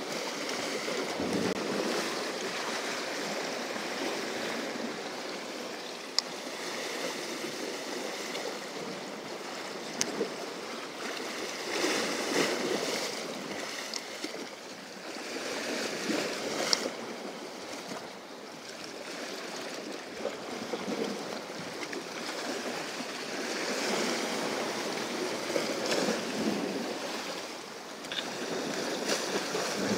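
Sea waves washing against shoreline rocks, the wash swelling and fading every few seconds, with a few brief sharp clicks.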